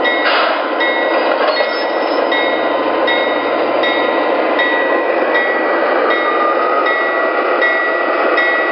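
O-gauge model of a GE ES44AC diesel locomotive running slowly on its track, its onboard sound system playing a steady diesel engine rumble through a small speaker. A thin ringing tone repeats about every three-quarters of a second.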